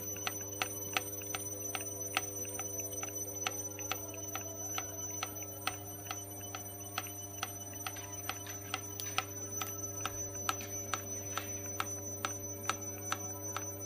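Fuel injection pump of a Walter M337 aircraft engine running, giving sharp regular clicks about three to four times a second over a steady hum.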